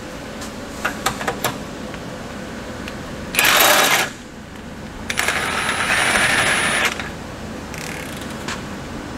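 A hand-held power wrench runs in two bursts, spinning a nut on a bolt: a short run about three and a half seconds in, then a longer run of nearly two seconds. A few light metal clicks come first.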